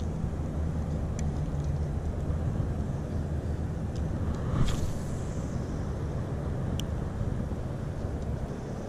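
Steady low engine hum, with a brief rustle about four and a half seconds in.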